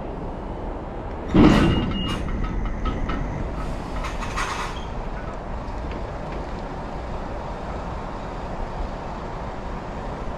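Articulated lorry reversing with its diesel engine running steadily; about a second and a half in, a loud bang as the trailer's wheels go up a kerb, followed by rattling from the trailer and a short hiss a couple of seconds later.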